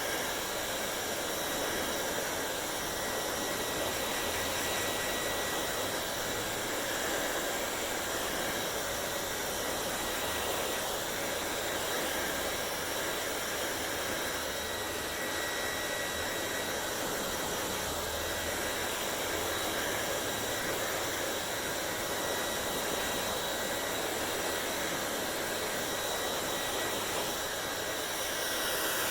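Hair dryer running steadily: a rushing blow of air with a thin, constant high whine from its motor.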